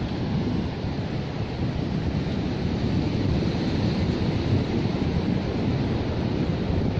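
Steady wash of ocean surf on a sandy beach, with wind buffeting the microphone in a low, rumbling flutter.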